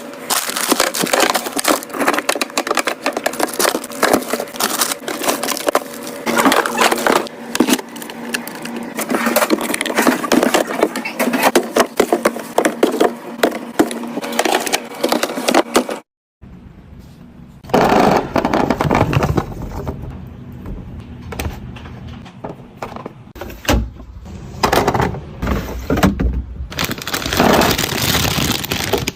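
Plastic containers, packaging and bottles being handled, opened and set down while a fridge is restocked: a dense run of clicks, taps and rustles. After a brief cut to silence about halfway through, the handling comes with heavier knocks and thuds.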